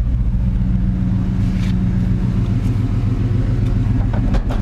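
Chevy 305 V8 in an '87 C10 pickup idling steadily, heard from inside the cab. A few light clicks near the end.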